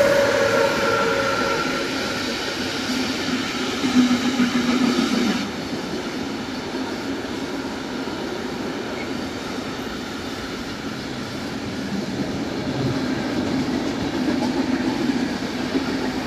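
Freight train passing through at speed. Two electric locomotives go by at the start with a whine that slides down in pitch. Intermodal pocket wagons carrying semi-trailers follow with a steady rumble and clatter of wheels on rail.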